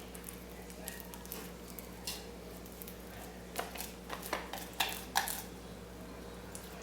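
Sticky homemade glue slime, activated with contact solution and baking soda, being kneaded by hand: scattered short wet squelches and clicks, most of them from about three and a half seconds in.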